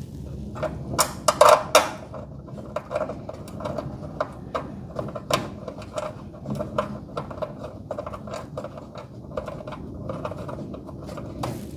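Irregular metallic clicks and knocks from hand tools and door hardware being worked while a garage door hinge is swapped. There is a louder cluster of knocks about a second in.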